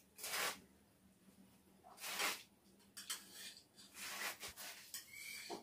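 Scissors snipping through fresh radish leaves and stems, about five crisp cuts a second or so apart, with the leaves rustling.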